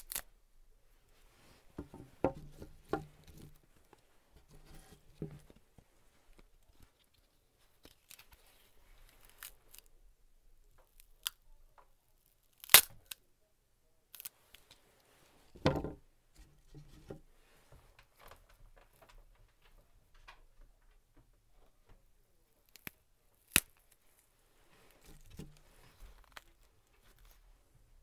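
Fresh celery stalks snapped, twisted and crushed by hand, close-miked: a series of sharp cracks with wet, fibrous crunching and tearing between them, the loudest crack about halfway through. It is foley for bones breaking and crushing.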